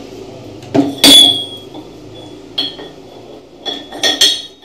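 Steel Mahindra tractor gearbox gears clinking on their shaft as a sliding coupling gear is fitted against the constant mesh gear. Several sharp metallic clinks: the loudest about a second in, with a short ring, one more midway, and a quick run of three near the end.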